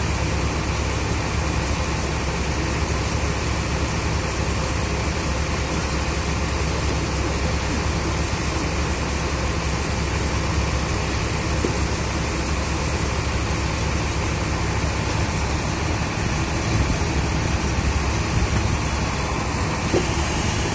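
Heavy engine of pipeline construction equipment running steadily at an unchanging speed.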